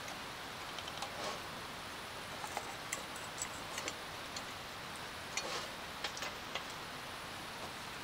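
Light clicks and clinks of an oil lantern's glass globe and metal frame being handled as the globe is lifted out, a dozen or so scattered through, over a steady background hiss.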